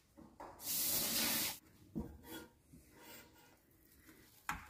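A harsh hiss lasting about a second, then soft rubbing and scraping as boiled potatoes and carrots are mashed in a steel pot, with a sharp click near the end.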